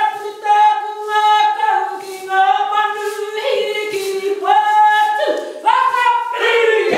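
A Māori kapa haka group singing together in traditional song, women's voices prominent, in long held notes that step from one pitch to the next in phrases with short breaths between.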